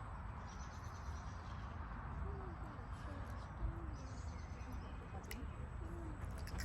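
Outdoor ambience: a steady low rumble of wind on the microphone, with faint birdsong twice and a few faint distant voices.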